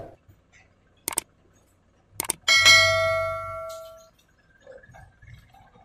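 Subscribe-button sound effect: two short clicks, then a bell chime that rings out for about a second and a half.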